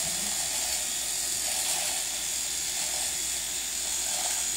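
Electric shaver running steadily against a man's moustache, cutting the hair, with an even motor sound and a high hiss throughout.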